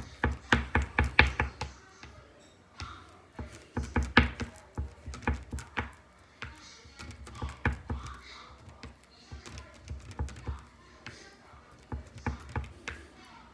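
Homemade glue-and-detergent slime being worked, giving runs of quick wet sticky clicks and squelches in several bursts with short pauses between them.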